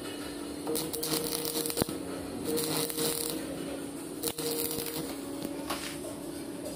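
Stick (arc) welding on a steel pipe assembly: the electrode arc crackling in uneven bursts that flare up and die down, over a steady hum.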